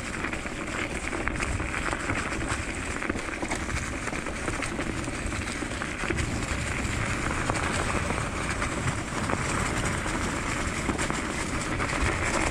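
Diggler DSK kick scooter rolling along a trail, its tyres running over leaf litter and crusty leftover snow. A steady rushing, crunching noise with no pauses.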